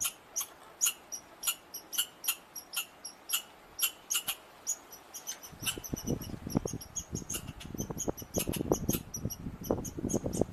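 American red squirrel calling: a quick series of short, sharp chirps, about three a second, that keeps going. About halfway through, a low, uneven rumbling noise joins the calls.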